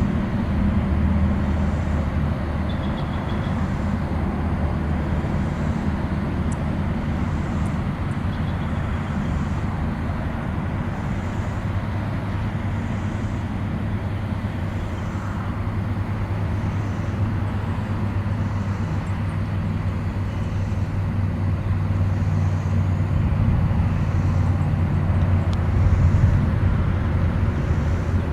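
Steady rumble of interstate highway traffic, swelling near the end. A faint high insect call pulses about once a second above it.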